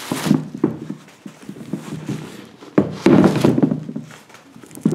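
Handling noise: a suede sneaker and its cardboard box being moved and rubbed close to the microphone, with irregular rustles and soft knocks, the loudest rustle about three seconds in.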